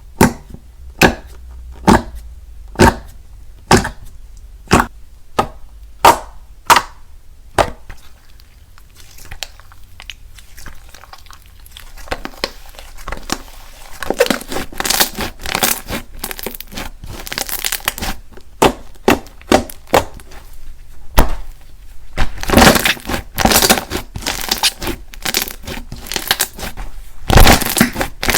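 Jelly slime being squished and poked by hand, giving sharp wet pops about once a second for the first several seconds, then a denser run of crackling, squelching squishes for the rest.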